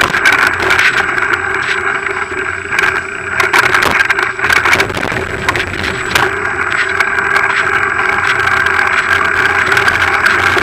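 Bicycle riding fast down a rough, wet forest trail: tyres rumbling over dirt, stones and leaves, with knocks and rattles over bumps and a steady whirring tone underneath.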